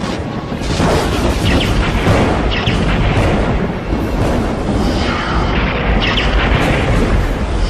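Loud, continuous rumbling thunder with deep booms and a few sharp crackling claps.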